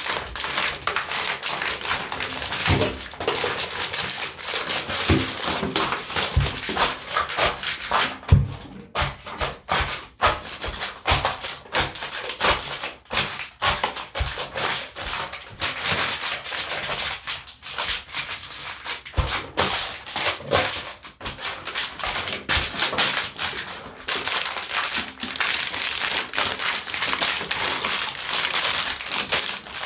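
Empty plastic water bottles being crushed under bare feet: a dense, continuous crackling and crinkling of thin plastic, with a few low thuds along the way.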